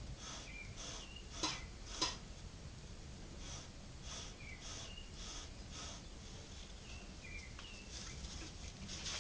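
A hand tool scraping grooves into a wooden handle in short, repeated strokes about every half second, with small squeaks. There are two sharp clicks about a second and a half and two seconds in.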